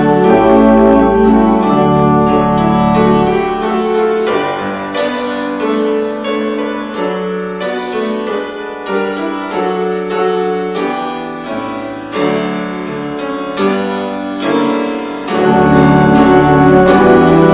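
An instrumental hymn played on keyboard, with piano leading. A few seconds in it drops to a softer, thinner passage, then swells back fuller with deep bass notes near the end.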